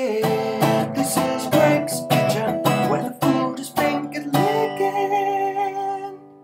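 Background music: acoustic guitar strummed in quick chords, ending on one held chord that fades out.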